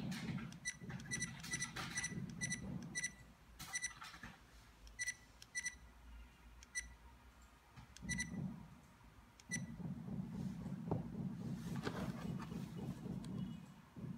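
Dash camera's key-press beeps: about a dozen short, identical high electronic beeps at irregular intervals as its menu buttons are pressed, stopping about ten seconds in. A low hum runs underneath.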